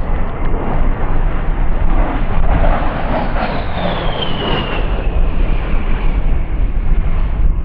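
A USAF A-10 Thunderbolt II's twin TF34 turbofan engines rumbling past, with a high whine that falls in pitch midway as the jet goes by.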